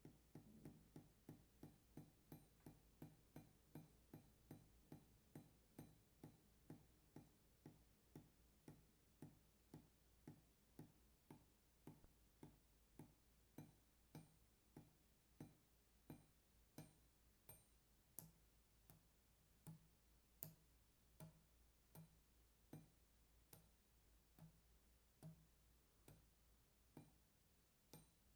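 Water dripping onto metal: faint, regular drips, each a short ping with a brief ring. They fall at about two a second at first and slow to a little over one a second later on.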